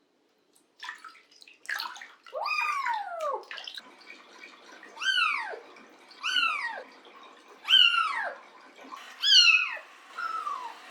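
Kitten meowing repeatedly during a bath: about six high cries, each rising and then falling in pitch, a second or so apart, over a faint wash of running or splashing bath water.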